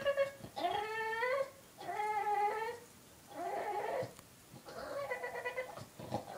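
Boston terrier crying: about five drawn-out, high whines in a row, each bending up and down in pitch, with short gaps between them. He is upset because the other dog has taken his bone.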